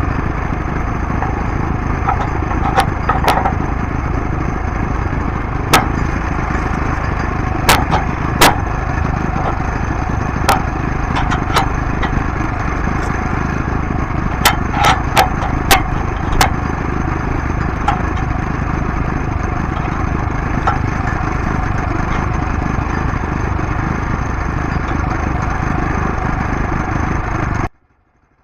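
Woodland Mills portable bandsaw mill running steadily while sawing an oak log, with a constant high whine and sharp cracks and snaps scattered through it. The sound cuts off suddenly near the end.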